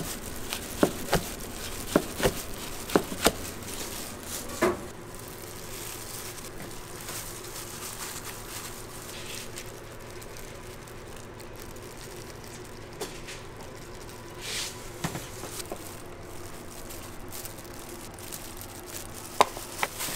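Kitchen knife slicing through a kimbap roll, its blade knocking on the cutting board several times in the first five seconds. After that, only a steady low kitchen background, with one sharp knock near the end.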